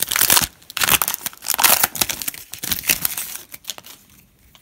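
Foil wrapper of a Panini Classics football card pack being torn open and crinkled by hand: a run of quick crackling rustles that fades out about three and a half seconds in.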